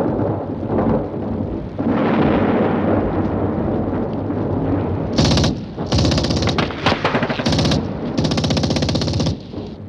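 Battle sound effects: a dense low rumble for the first few seconds, then, from about five seconds in, a series of short bursts of rapid machine-gun fire.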